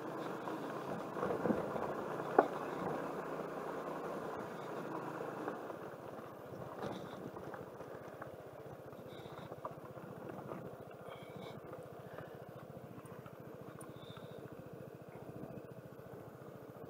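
Suzuki Burgman scooter riding on a gravel road: engine running with tyre and wind noise, and a sharp knock about two seconds in. The sound gets quieter after about six seconds.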